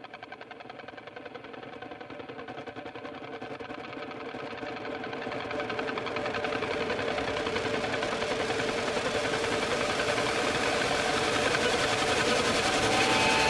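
A buzzing drone with a steady pitch and a fast, even flutter, fading in and growing steadily louder. It is the build-up that leads straight into loud rock music.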